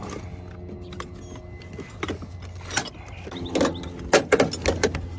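Things being shifted around in a car's trunk: a string of knocks and rattles, loudest and most frequent in the second half, over a steady low hum.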